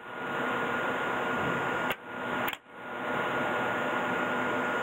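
Steady mechanical hum of a running industrial machine, with a thin high tone through it. About two seconds in it drops out briefly twice, each time with a sharp click.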